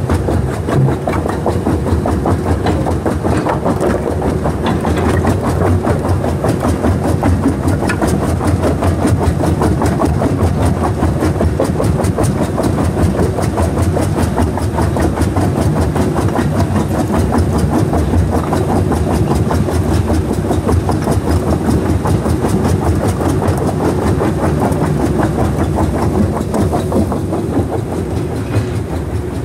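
Compact jaw crusher running steadily, its engine humming low while concrete and stone rubble clatters and rattles continuously through the feeder and jaws.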